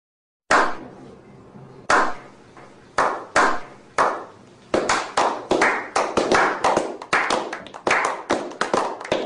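Slow clap by a small group of men. Single hand claps with a short ringing tail come about a second apart, starting half a second in. From about five seconds in, more hands join and the claps speed up into rapid, steady applause.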